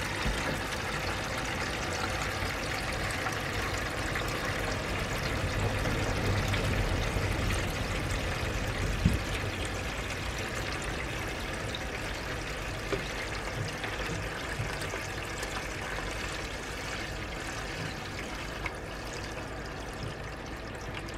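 Water gushing steadily from a hose into a part-filled plastic bucket, churning and splashing: flush water being run through a central heating radiator, coming out brown with sludge. One brief knock about nine seconds in.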